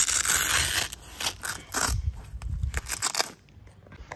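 Rustling and scraping of the Rampage Trailview soft top's fabric as a hand pulls open its storage pocket, with short crackles, dying down about three seconds in.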